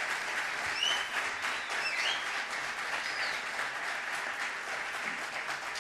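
Concert audience applauding steadily, with a few brief high-pitched glides rising over the clapping between about one and three and a half seconds in.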